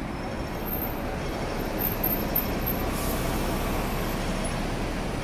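Hong Kong double-decker electric tram running along its track: a steady rumble of the car moving over the rails, heard from inside the tram.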